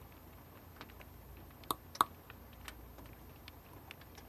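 Rain dripping and tapping on a hard surface: irregular sharp taps over a faint steady hiss, with two louder drops about two seconds in.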